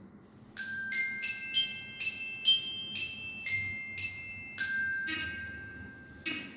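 Timer alarm chime: a short melody of bright, bell-like struck notes, about two a second, closing on a chord of several notes near the end.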